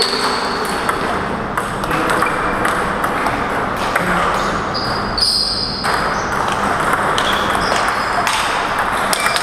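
Table tennis ball being struck back and forth in a rally: repeated sharp clicks of the plastic ball off the rubber paddles and the tabletop, over the steady background noise of a sports hall.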